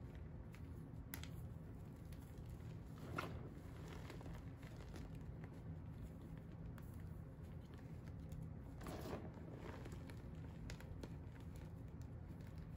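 Hands squeezing and crumbling a pile of powder and broken pieces from dyed-and-dried blocks: faint soft crunching, with a few louder crunches about a second in, about three seconds in and around nine seconds, over a steady low hum.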